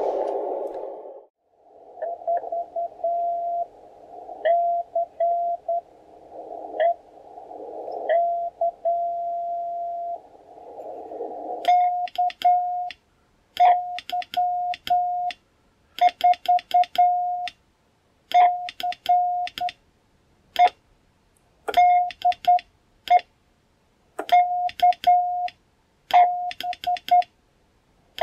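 Shortwave receiver hissing on a narrow CW passband, with faint Morse code from other stations coming through. About twelve seconds in, hand-keyed Morse from a low-power CW transmitter takes over as a strong single-pitch sidetone beep heard through the receiver. Each element starts with a click, and it is silent between elements; the message is a call to KY4CE.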